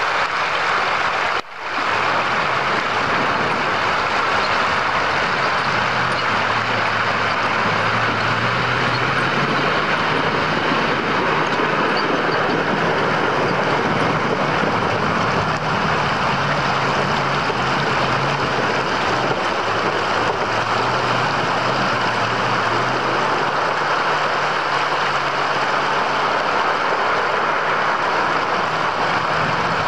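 Heavy truck's engine running as it drives through a river, over the steady rushing noise of the flowing water. The sound drops out briefly about a second and a half in.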